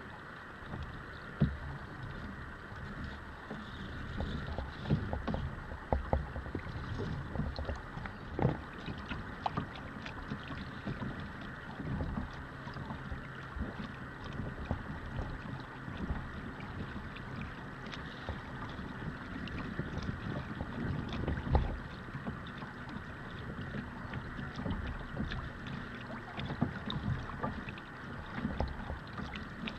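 Water sloshing and lapping against a kayak hull on a choppy bay, with wind noise on the microphone. A few sudden louder thumps come through, the sharpest about a second in and again about two-thirds of the way through.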